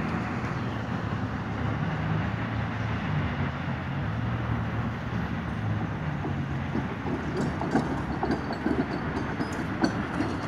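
Hi-rail pickup truck on the railroad track, its engine running with a steady low hum. From about seven seconds in, sharp clicks come irregularly as the truck starts to roll along the rails on its guide wheels.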